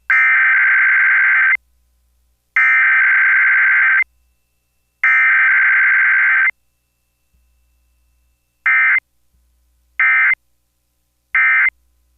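Emergency Alert System SAME digital data bursts: three long, identical buzzy header bursts about a second apart, then three short end-of-message bursts.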